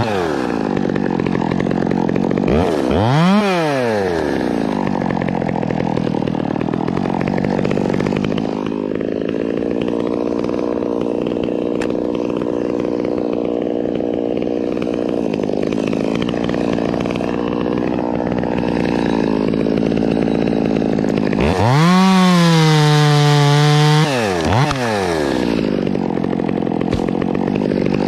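Two-stroke top-handle chainsaw running at idle, blipped up and back down about three seconds in. Near the end it is held at full throttle for a couple of seconds before dropping back to idle.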